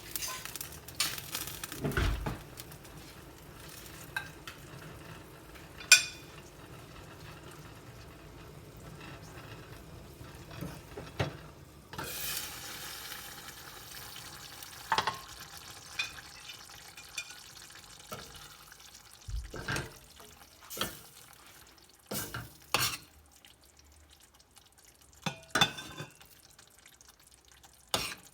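Food being stirred in a cooking pan, the utensil knocking and clinking against the pan at irregular moments over a light frying sizzle.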